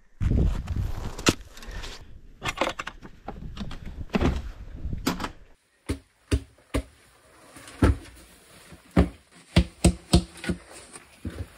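A run of knocks, clunks and rustling as a climber moves about with his gear in a small mountain bivouac hut. After a short silence about halfway through, the knocks come sharper and further apart.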